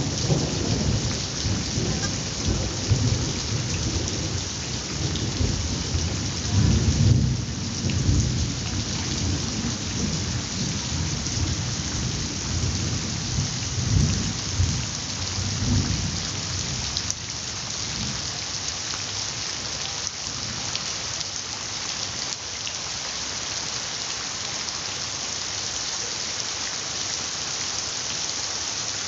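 Heavy tropical rain pouring onto a concrete path and the sheet of runoff covering it, a dense steady hiss. Under it a low rumbling swells several times in the first half, then fades out about halfway through, leaving the rain alone.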